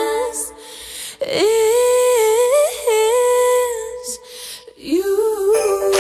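Female pop vocal group singing without words: long held notes and sliding runs in harmony, with no instruments.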